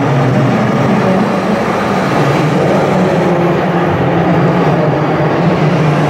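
Steady engine-like drone of a radio-controlled model articulated dump truck driving loaded through loose dirt.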